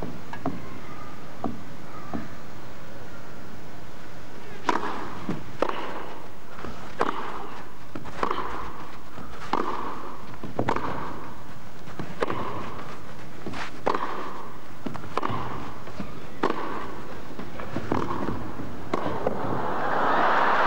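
Tennis ball bounced a few times before the serve, then a long rally: sharp racket-on-ball hits and bounces about every second and a quarter, about a dozen in all. Near the end crowd applause swells as the point is won.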